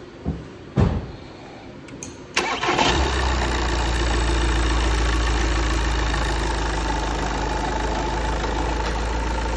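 VAG 2.0 TDI common-rail four-cylinder diesel with a freshly fitted timing belt and oil pump belt, cranked and catching about two and a half seconds in, then idling steadily. Two short knocks come before the start.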